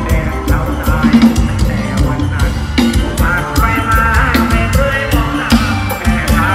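Loud live band music carried over stage loudspeakers: a steady drum-kit beat with heavy bass and a melody line on top.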